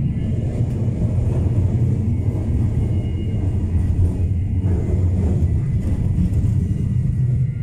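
Tram running along street track, heard from inside the car: a steady low rumble from the wheels and running gear, with a faint high whine above it.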